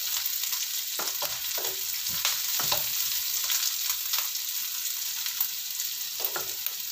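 Shallots, garlic and dried anchovies sizzling in a little oil in a wok, with a metal spatula scraping and clicking against the pan as they are stirred.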